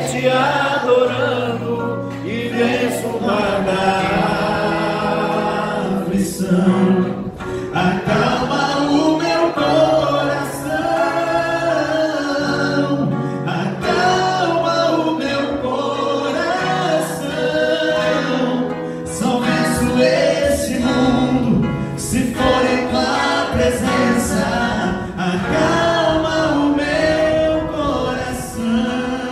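Two male voices singing a slow gospel song together over acoustic guitar accompaniment.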